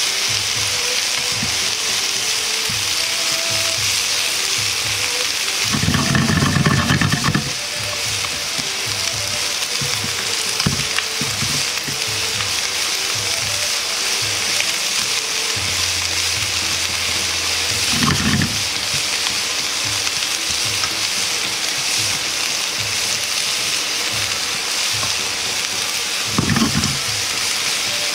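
Sliced cabbage, carrot and komatsuna sizzling gently in oil in a nonstick frying pan over low heat while being turned with chopsticks: a steady frying hiss. A louder low rumble rises for about a second and a half around six seconds in, and briefly twice more later.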